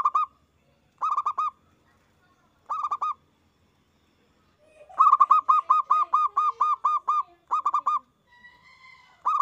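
Zebra dove (perkutut) singing loudly: short bursts of quick, rolling coos, three of them in the first three seconds. Then a longer run of about a dozen notes and a short burst near the end.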